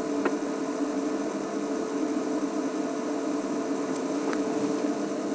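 Game-drive vehicle's engine idling steadily while parked, a constant hum under a steady hiss.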